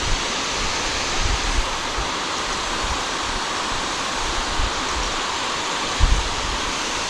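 Steady outdoor rushing hiss, with a few short low thumps, the strongest about six seconds in.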